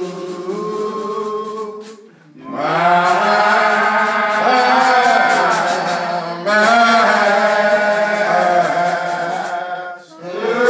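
Slow hymn singing led by a man's voice into a microphone, drawing out long held notes, with brief pauses for breath about two seconds in and near the end.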